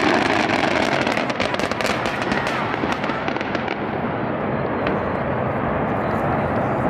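Fireworks crackling: a dense run of rapid, sharp pops over a continuous din, the crackle thinning out after about three seconds.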